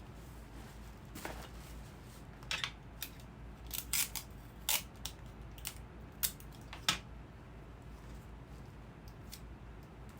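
Gift-basket items being handled and set in place: a series of irregular sharp clicks and crinkles, most of them in the first seven seconds, then quieter handling.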